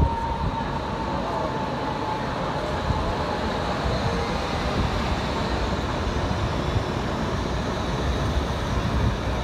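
Blue low-floor articulated electric tram rolling past close by on street track: a steady rumble of wheels and running gear.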